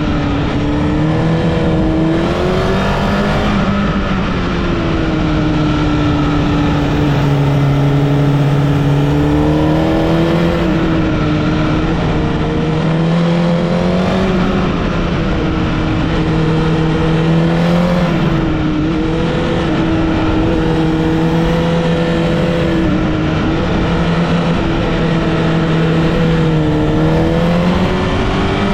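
Honda CBR1000RR (SC77) inline-four sportbike engine under way, its note rising and falling over and over as the rider opens and closes the throttle.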